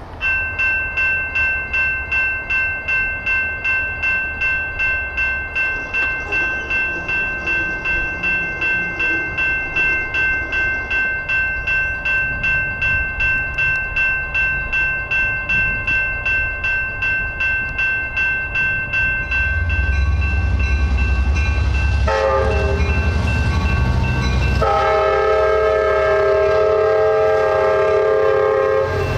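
General Signal Type 2 electronic railroad crossing bell starting up and dinging at a fast, even rate. About twenty seconds in, a train's rumble comes in, and its horn sounds twice over the bell, the second blast long.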